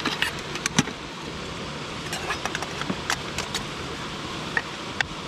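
Scattered light clinks and rattles as a camping gas stove and its kit are unpacked and handled, over the steady rush of a mountain stream.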